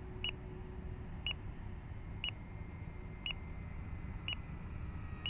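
RC transmitter's flight timer beeping once a second, a short high beep each time, as the countdown runs out. A steady low rumble of wind on the microphone runs underneath.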